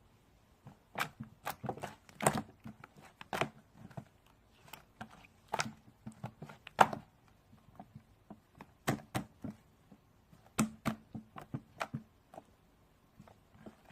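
Slime being played with by hand, giving irregular sharp clicking pops in scattered clusters.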